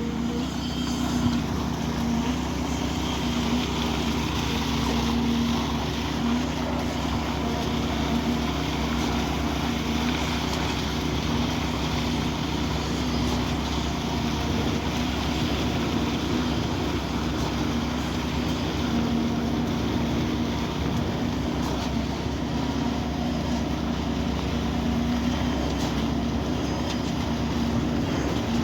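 Heavy diesel engine of construction machinery running at a steady speed, a constant even hum with no change in revs.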